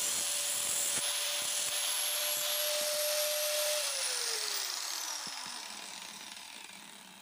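Electric grinder motor running with a steady whine, then switched off about four seconds in: its pitch falls and the sound fades as the wheel spins down.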